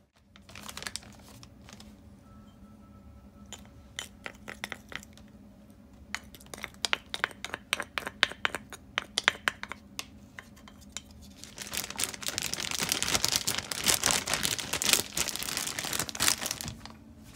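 A zip-top plastic bag of raw chicken being handled: scattered light clicks and taps at first, then loud, continuous crinkling and rustling of the plastic in the last third as the bag is squeezed and worked.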